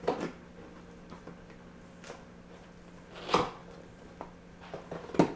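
Cardboard retail box being opened by hand: a few short scrapes and knocks of cardboard and packaging, the loudest about three and a half seconds in.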